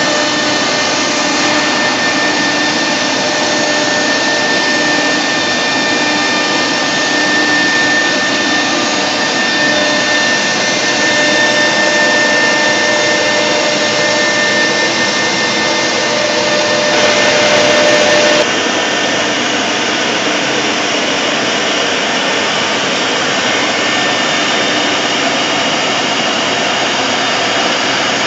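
Multi-spindle CNC router running, its spindle whining steadily while the bit routes grooves into a board. About two-thirds of the way through the sound swells briefly, then changes suddenly as the steady whine drops out, leaving a rougher, noisier cutting sound.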